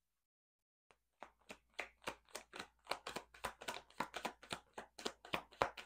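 A tarot deck being shuffled hand to hand: a quick run of short card slaps, about five a second, starting about a second in.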